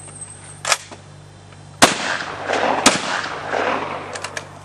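Two shotgun shots about a second apart, each followed by a long rolling echo, with a sharp click shortly before the first shot.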